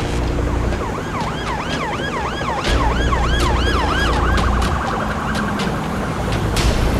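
Emergency vehicle siren in a fast yelp, its pitch swinging up and down about three times a second, switching a little past four seconds in to a quicker warble before it stops. Underneath it runs a low rumble with a few sharp clatters.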